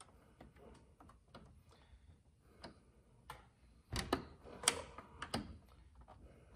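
Faint plastic clicking and rattling as a gloss-black Audi rings emblem is pushed against the grille and its clips fail to snap in, not lining up with their holes. The clicks are scattered at first, with a denser, louder run about four seconds in.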